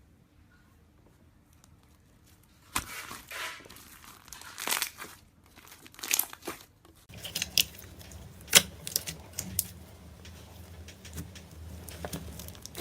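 Slime being squeezed and pressed, making irregular crackling and popping noises. The first couple of seconds are near silent.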